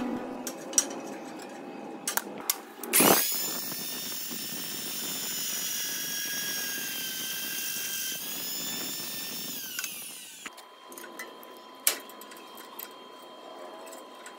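Electric drill press spinning up about three seconds in and running with a steady whine while a twist bit cuts through a small steel plate. The pitch sags slightly as the bit bites near eight seconds, then the motor winds down around ten seconds. Light clicks and taps of metal parts being handled come before and after.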